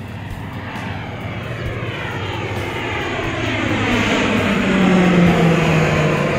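A fixed-wing aircraft flying overhead, its engine noise growing louder to a peak about five seconds in. Its low tone drops slightly in pitch as it passes.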